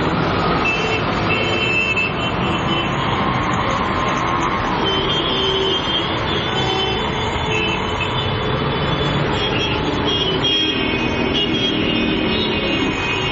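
Steady din of road traffic: vehicle engines and tyres running, with faint high tones over it.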